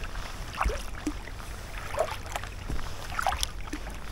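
Double-bladed kayak paddle dipping into river water, with several short splashes and drips from the strokes over a low steady rumble.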